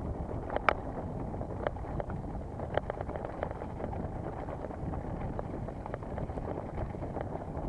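Mountain bike ridden over rough trail: a steady rumble of wind on the microphone and tyres, with frequent sharp clicks and rattles from the bike, the loudest about a second in.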